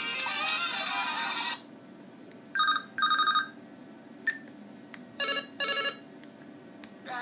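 LG KS360 phone's loudspeaker playing its built-in ringtones. A melodic tune ends about a second and a half in, then a telephone-ring tone sounds as two double rings, two short bursts each, about two and a half seconds apart. Just before the end another tune begins.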